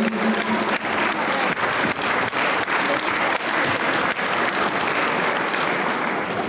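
Audience applauding: sustained clapping from many hands.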